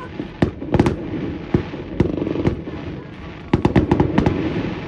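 Aerial firework shells bursting in a series of irregular sharp bangs, with a quick run of several bangs between about three and a half and four seconds in.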